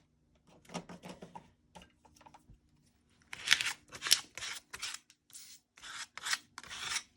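Scissors cutting paper: soft paper handling at first, then from about three seconds in a run of crisp snips, about two a second.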